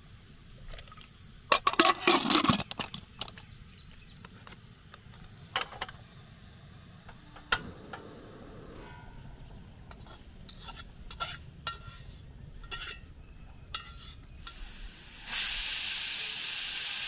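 Hawkins Classic aluminium pressure cooker clattering as its lid is fitted and the cooker is handled, followed by scattered clicks and knocks. Near the end a loud steady hiss starts and cuts off suddenly.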